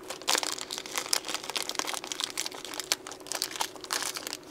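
Small clear plastic parts bag crinkling irregularly as fingers rummage inside it.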